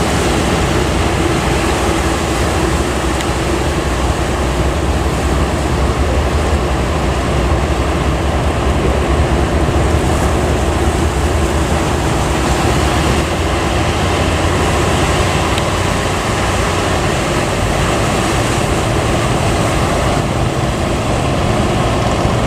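Loud, steady rush of breaking surf at a river-mouth sandbar, with wind on the microphone and a low drone underneath.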